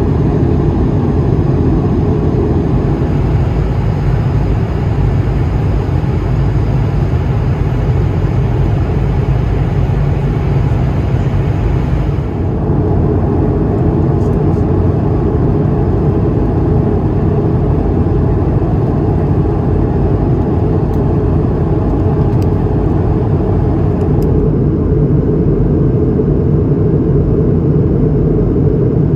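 Airliner cabin noise inside an Airbus A220-300 in flight on descent: a loud, steady, deep rush of airflow and engine noise. Its character changes abruptly at about 12 s and again at about 24 s, with a few faint ticks in between.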